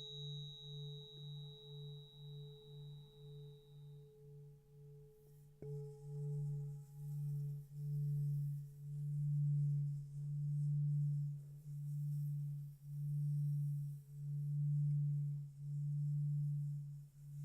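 Electronic drone of low pure tones that beat against each other, pulsing at about two a second at first. About six seconds in, after a faint click, the pulsing grows louder and slows to under one a second.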